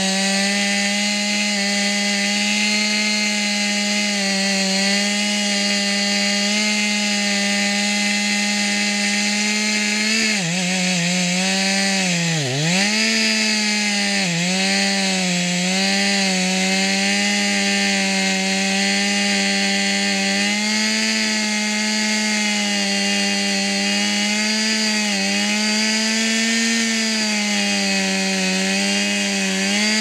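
Two-stroke chainsaw running at high revs, cutting into wood. Its pitch dips sharply twice about ten to thirteen seconds in as the chain bogs under load, with smaller dips later.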